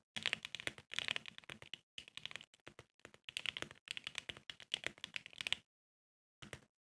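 Rapid typing on a custom DNA65 acrylic-stack mechanical keyboard with Akko Radiant Red linear switches, keys clacking in quick runs. The typing stops about 5.5 seconds in, followed by one short flurry of keystrokes.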